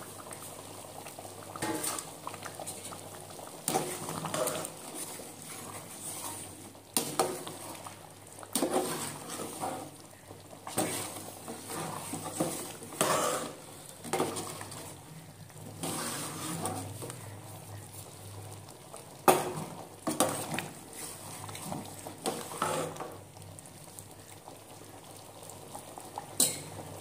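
Thick mutton curry bubbling in a metal pot while a wooden ladle stirs it, with the steel lid and ladle clinking and knocking against the pot now and then.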